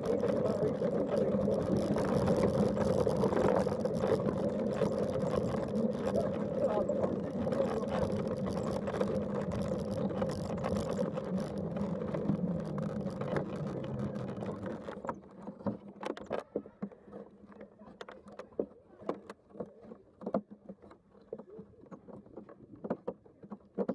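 A Land Rover driving along: a steady running and rolling noise with a low hum, which cuts out about 15 seconds in, leaving only scattered faint clicks.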